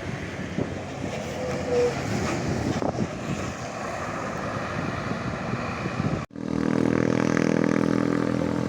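Road traffic going by. About six seconds in the sound breaks off abruptly, then a nearby vehicle engine is heard running steadily.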